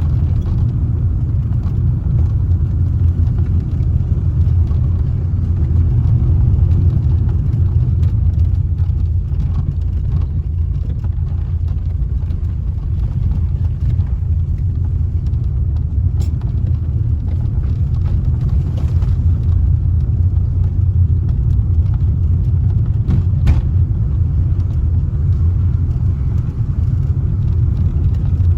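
Car driving along a road: a steady low rumble of engine and tyre noise, with two faint clicks in the second half.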